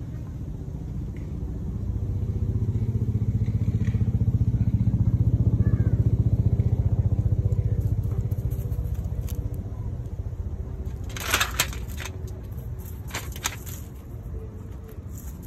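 A motor vehicle passing by: a low engine rumble swells over a few seconds and then fades away. A few sharp crackling clicks follow near the end.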